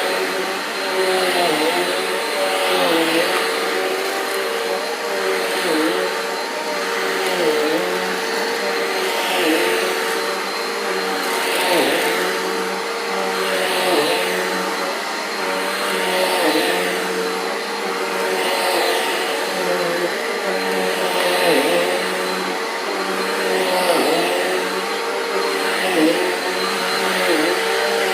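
Carpet Pro upright vacuum cleaner running on carpet, a steady motor hum whose pitch dips briefly about once a second as it is worked back and forth.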